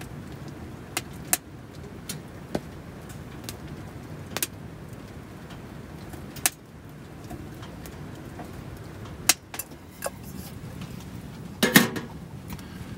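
Wood fire in a small stove crackling: sharp, irregular pops every second or two over a steady low background noise, with a louder cluster of cracks and knocks near the end.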